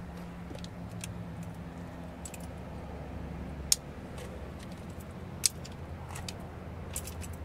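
A car engine idling with a steady low hum, with scattered sharp clicks and light rattles at irregular intervals over it.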